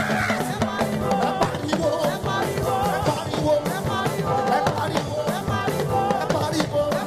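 Live gospel band music: drum kit and percussion keep a busy, steady dance beat under a wavering melodic line.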